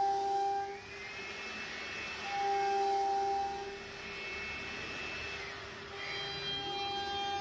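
CNC router spindle whining steadily as the bit routes grooves into the board, the cutting noise swelling louder at the start and again about two and a half seconds in. A higher whine slides in and out twice as the head moves.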